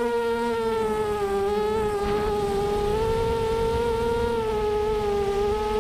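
Lumenier QAV250 quadcopter's four 2206 2000kv brushless motors spinning 5-inch props, picked up by the onboard camera: a steady buzzing whine that dips slightly in pitch about a second and a half in and rises again around three seconds, over a low rumble of wind and frame vibration.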